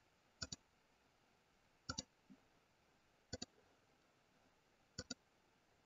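Faint computer mouse clicks: four pairs of quick clicks, about a second and a half apart.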